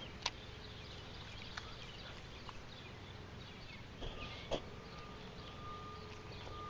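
Quiet outdoor ambience with faint bird chirps over a low steady hum. There are two sharp clicks, one just after the start and a louder one about four and a half seconds in. A faint steady whine comes in about four seconds in.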